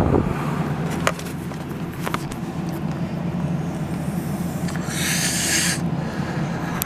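Steady low hum of a car idling, heard from inside the cabin, with a few light clicks. About five seconds in comes a breathy hiss lasting about a second.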